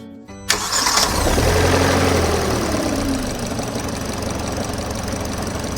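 Kia Sportage engine starting about half a second in, flaring up in revs and then settling into a steady idle. Freshly rebuilt timing chain and camshafts, it runs without the earlier shaking and abnormal knocking, which the mechanic takes as the fault fixed.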